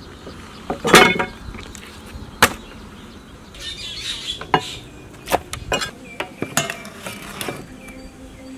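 Scattered knocks and clinks of cooking utensils being handled, the loudest about a second in, with a brief rustle around the middle.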